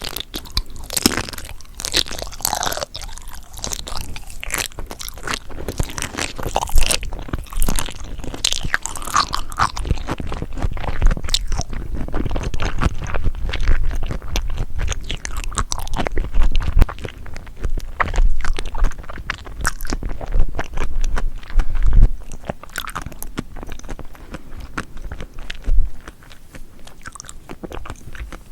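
A person chewing crunchy seafood: a dense, continuous run of crisp crunches and wet clicks, with heavier bites now and then.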